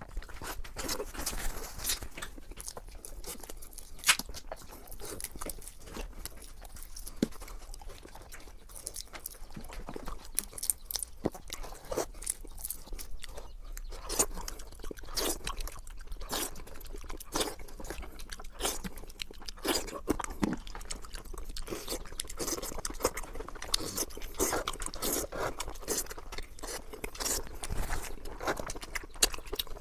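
Close-miked eating: chewing and crunching, with many sharp, irregular clicks and smacks.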